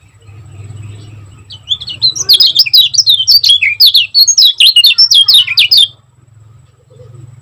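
Kecial kuning white-eye singing a fast, tightly packed run of high chirping notes for about four seconds, starting about one and a half seconds in, over a faint low hum.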